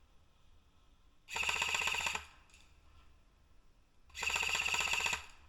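Airsoft gun firing two full-auto bursts, each about a second long and about three seconds apart, a rapid rattle of shots.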